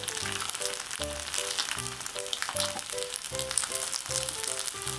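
Batter-coated udon noodles deep-frying in a pot of hot oil: a steady sizzle with fine crackling. Background music of short repeated notes over a bass line plays along with it.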